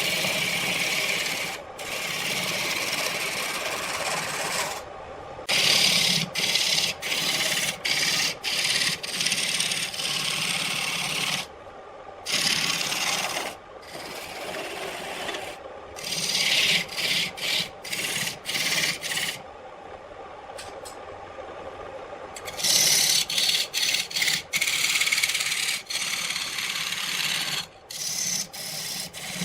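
Wood being worked on a running lathe: a scraping hiss from tool or abrasive against the spinning wood over a low motor hum. It cuts off and restarts abruptly many times.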